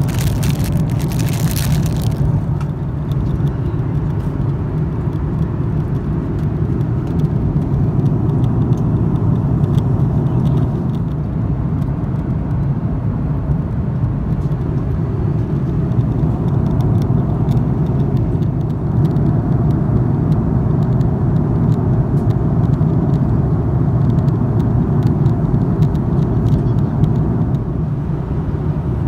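Steady low cabin roar of an Airbus A330-300 in cruise, engine and airflow noise heard from an economy seat. A few light clicks sound in the first two seconds.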